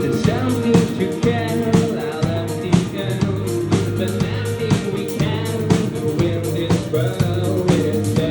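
Live rock band playing: a steady drum-kit beat with electric guitar and bass under a sung vocal line.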